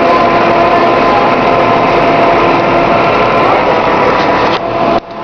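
Farm tractor engine running at a steady pace as it hauls a load, with a loud rushing hiss over it. The sound drops off abruptly near the end.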